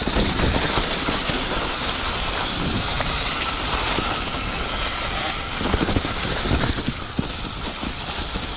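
Polygon Siskiu T7 mountain bike riding fast over a leaf-covered trail: tyres hissing and crunching through dry leaves and sticks, with wind rushing on the microphone. A few knocks from the bike going over bumps come a little past halfway.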